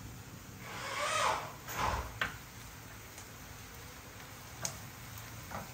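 A spatula scraping ginger-garlic paste out of a container: a few scrapes, then a sharp tap about two seconds in and a couple of light clicks near the end.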